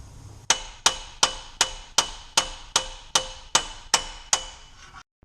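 A hammer striking steel eleven times in a steady rhythm, about two and a half blows a second, each with a short metallic ring. The blows are knocking the inner end of a worn CV axle out of a 2005 Ford Escape's transmission from behind.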